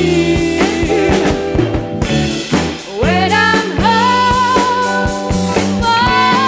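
Rock band playing live during a soundcheck run-through: drum kit, bass guitar and chords, with a high lead melody that slides and bends in pitch from about three seconds in. The sound is that of a 1970s analog live tape recording.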